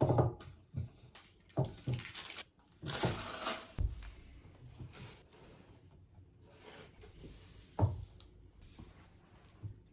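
Household handling sounds: a run of knocks and clatters over the first four seconds with a brief hiss around three seconds, then one sharp thump near eight seconds.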